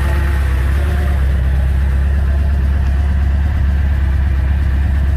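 Ford Excursion's 7.3 L Power Stroke V8 turbo-diesel idling steadily, cold, moments after a cold start at about 0 °F.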